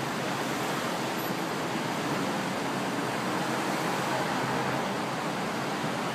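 Steady, even rushing background noise with no siren and no distinct engine note standing out.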